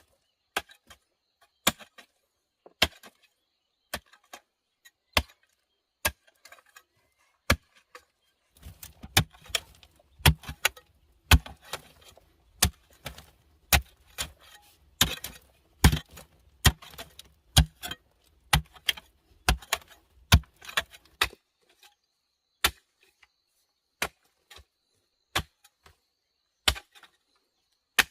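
Wood being chopped with a blade: sharp strikes about once a second, which come much faster and closer together for a stretch in the middle, then space out again near the end.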